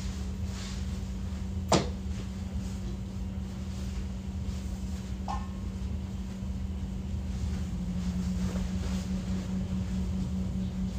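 Steady low hum of a household appliance, with one sharp click about two seconds in and a faint short tone near the middle.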